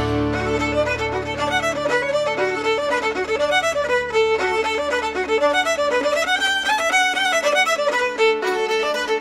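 Background music: a quick fiddle tune over held low notes.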